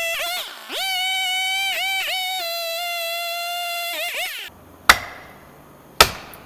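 Background music: a held, wavering electronic tone with dips in pitch, which stops about four and a half seconds in. Then two sharp strikes about a second apart, each ringing briefly.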